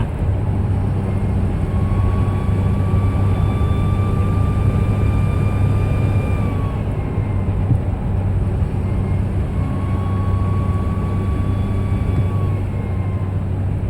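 Ford F350 diesel pickup running under boost, a steady low drone with a high-pitched whistle that comes in twice, each time rising slightly for a few seconds and then dropping away. The squeal is a boost leak, which the owner traces to the lower intercooler (air-to-air) hose at the edge of its clamp.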